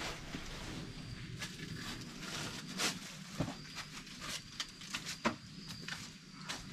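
Scattered scuffs and light knocks of shoes on rock, bark and dry leaves during a climb up a leaning log on a dry rock face.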